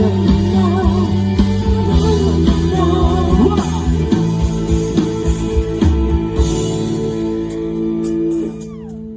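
Live band playing the closing bars of a Thai pop song, guitar and drums carrying a melody line. The drums stop about six seconds in and a held chord rings on, dropping away near the end.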